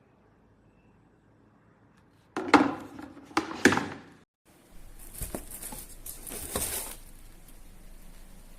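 Cookware being handled: three loud knocks with a short ring, then about two seconds of hiss with a few lighter knocks, fading to a faint steady noise.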